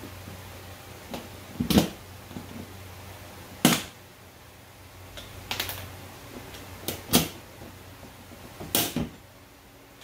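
A hand pop-rivet tool being squeezed to set pop rivets, giving about five sharp clacks spaced one to two seconds apart.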